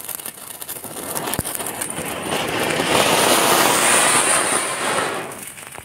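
Ground firework fountain (anar) spraying sparks: a crackling fizz that swells into a loud, steady hiss about two seconds in, then dies down near the end.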